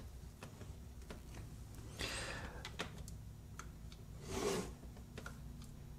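Quiet room with a person's soft breaths, one about two seconds in and a louder one about four and a half seconds in, and a few faint clicks.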